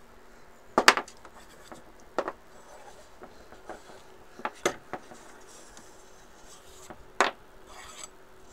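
Metal linear-bearing blocks from a 3D printer's guide rods being handled and set down on a plywood bench: about five separate sharp knocks and clinks, the loudest a double knock about a second in, with faint scraping and rubbing between.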